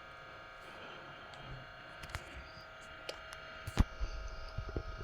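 Quiet room tone with a steady electrical hum of several thin tones, broken by a few sharp clicks, the loudest about four seconds in, and a low rumble near the end.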